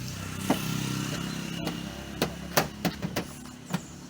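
A steady engine hum that fades after about two seconds, followed by a quick run of sharp plastic clicks and taps as car interior trim covers are pressed back into place.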